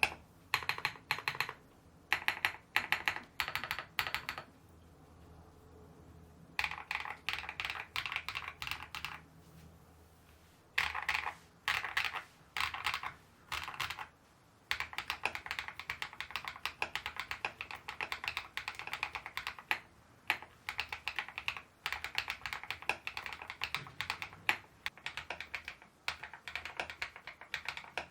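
Typing on a YUNZII B68 mechanical keyboard with a plastic case and MOG-profile keycaps: short bursts of key presses broken by brief pauses, then steady, fast typing from about halfway through.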